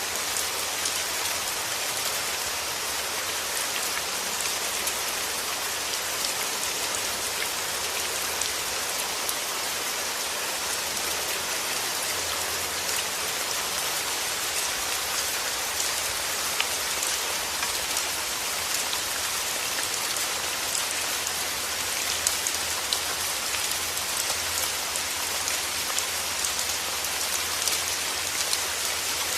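Steady rain falling: an even hiss of rainfall with many separate drop hits ticking through it.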